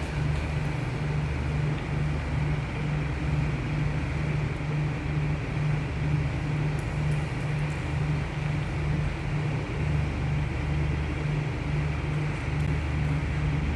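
Car engine and road noise heard from inside a moving vehicle: a steady low hum with a regular throb over the rush of tyres on the road.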